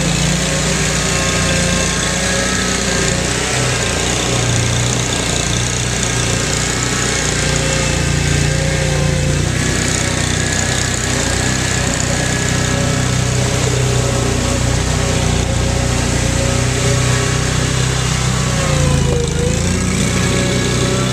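Small engines of tracked amphibious ATVs, including a Mudd-Ox 8x8 on Adair tracks, running steadily as the machines wade through a muddy creek. There is a brief dip in engine pitch near the end.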